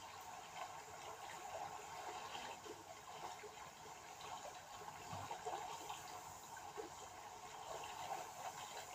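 Quiet trickling, bubbling water, a steady wash with many small drips and pops scattered through it.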